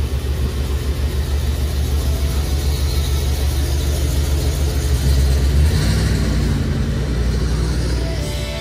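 Ambulance engine running as the ambulance pulls out of its garage bay and drives past, a loud low rumble; the deepest part of the rumble drops away about six seconds in.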